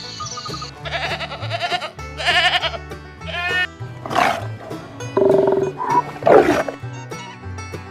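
Background music with a run of about six short animal calls of different kinds, some bleat-like with a quavering pitch, coming one after another.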